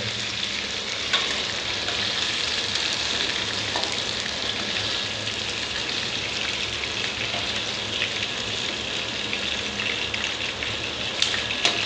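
Pre-boiled chicken pieces frying in hot oil in a kadhai: a steady sizzle. A few light clinks of a steel slotted spoon against the pan come about a second in and again near the end.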